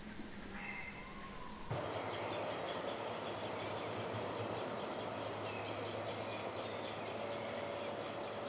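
A short pitched call from a young tawny owl in the first couple of seconds. After that, outdoor background with a rapid, high, evenly repeated chirping at about four a second, over a steady low hum.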